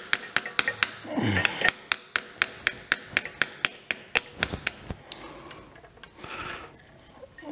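Rapid light hammer taps, about four a second, driving a block heater into the water jacket of a Kubota D722 diesel engine block, where it keeps catching on a casting. The tapping stops about five seconds in, and faint scraping follows.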